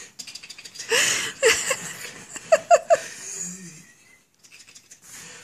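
A person laughing in short high bursts, three quick ones the loudest about halfway through, over the rustle and scratch of a cat wrestling a hand on a leather beanbag.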